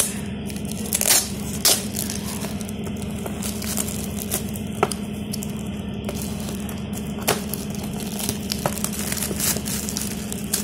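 Metallic holographic gift wrap crinkling as a present is handled and cut open with scissors, in scattered sharp crackles over a steady low hum.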